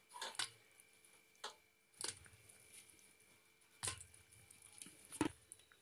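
Fried gulab jamun balls dropped one by one into sugar syrup in a stainless steel pot. About six faint, short plops and clicks come irregularly, the loudest near the end.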